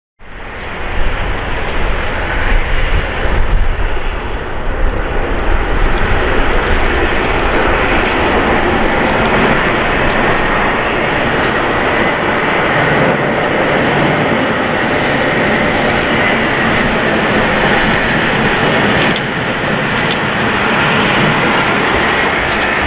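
LOTOS Kolej 6Dg diesel shunting locomotive running light, its diesel engine running steadily as it approaches and draws alongside.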